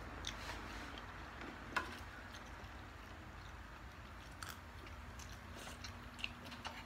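People eating with their hands: faint chewing and mouth sounds with scattered small clicks and taps, the sharpest a little under two seconds in, over a steady faint room hiss.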